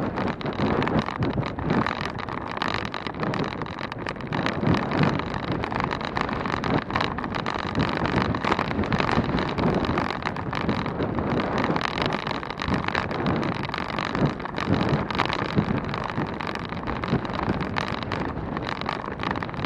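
Wind rushing over the microphone of a bicycle on the move at road speed, a dense noise that comes and goes unevenly.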